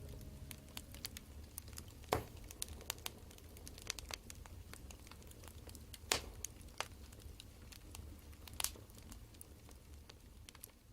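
Wood fire crackling, with scattered small snaps, three louder pops and a low rumble underneath, slowly fading out.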